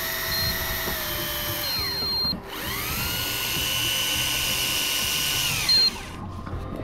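Electric fishing reel's motor whining as it winds line. It slows to a stop about two seconds in, speeds up again, runs steadily and winds down near the end. A few short high beeps sound over it.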